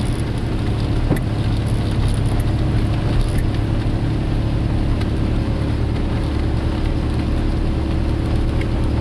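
Vehicle driving slowly up a rough dirt road, heard from inside the cab: a steady low engine and road drone with scattered small clicks and rattles.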